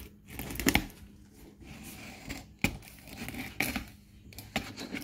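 A knife blade cutting along the taped seam of a cardboard shipping box, with scraping and a few sharp tearing rips, the loudest under a second in, as the cardboard is sliced and pulled open.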